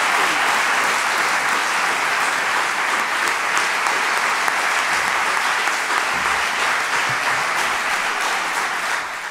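Theatre audience applauding steadily, fading out quickly near the end.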